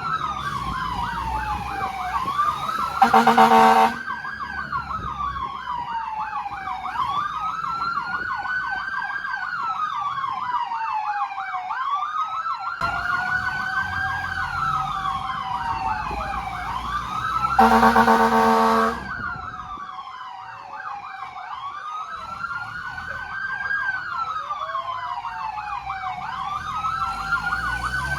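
Several emergency sirens on responding fire vehicles sounding together: slow wails rising and falling every few seconds over a fast warble, with an engine rumbling underneath. A loud horn blasts for about a second twice, a few seconds in and again just past halfway.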